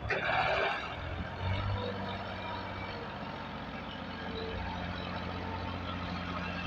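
Heavy diesel engine running steadily, with a short burst of noise in the first second.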